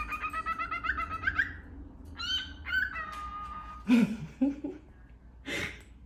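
Cockatiel chattering: a quick run of warbling chirps, then a few rising chirps and a held whistled note. A short, louder sound breaks in about four seconds in, and another brief one comes near the end.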